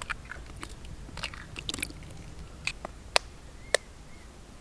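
Hen's eggs being cracked into a steel bowl of flour: a series of short, sharp cracks and clicks of breaking shell.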